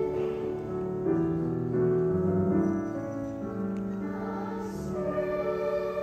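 Children's choir singing held notes in harmony, moving to new chords every second or two.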